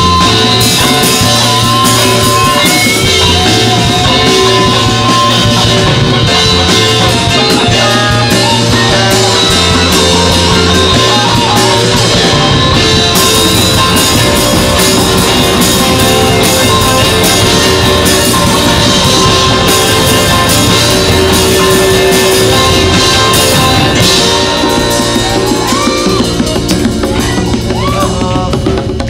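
Live rock band playing: electric guitar, electric bass and drum kit together. The sound thins out and gets a little quieter near the end.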